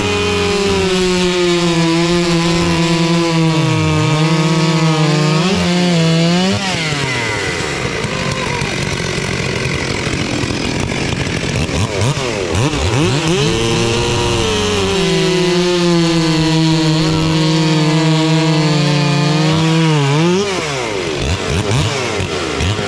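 Two-stroke chainsaw running at high revs, its pitch held steady for several seconds at a time. The pitch falls away about six seconds in and again about twenty seconds in, and climbs back to full revs in between.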